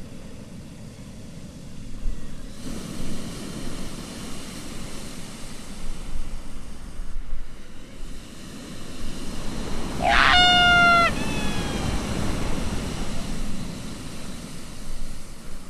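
Steady rushing wind noise, with a single loud pitched animal call about two-thirds of the way through, lasting about a second and sliding slightly down at its end.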